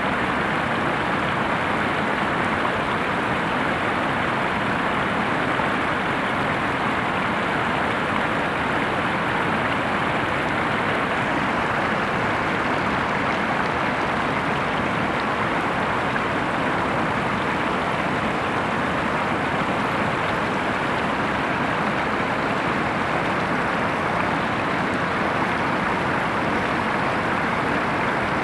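Steady rush of water pouring over the broad, low ledge of the Ventas Rumba waterfall on the Venta River.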